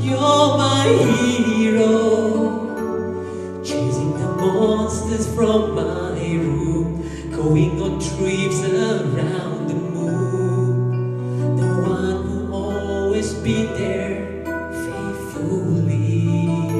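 Male singer singing into a microphone with a live band, with long held bass notes and chords underneath.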